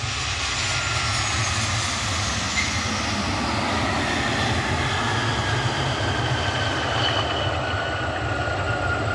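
Jet airliner arriving and passing, its engines making a steady, even noise with a low rumble, and faint whining tones that slowly fall in pitch as it goes by.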